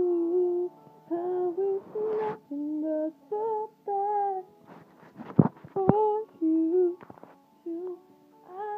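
A woman singing a slow melody unaccompanied, in held notes with short breaks between them. A few sharp clicks come about five seconds in.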